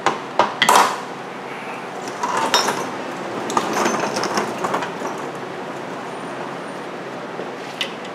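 Metal hand tools clanking and clinking: a few sharp knocks in the first second, then scattered lighter clinks.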